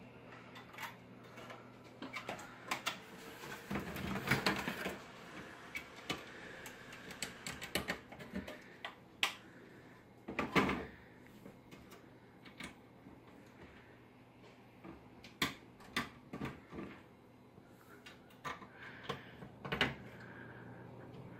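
Irregular sharp clicks and knocks from hands handling the newly assembled desktop PC and its cables, over a steady low hum. A few louder knocks come around four and ten seconds in.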